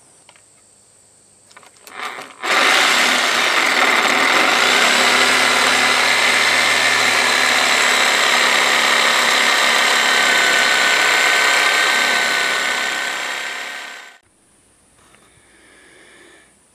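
Corded electric drill drilling into a wooden post: a couple of short blips, then about eleven seconds of steady running before it winds down.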